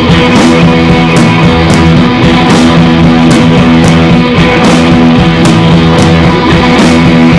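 Background music: loud, guitar-led rock with a steady drumbeat.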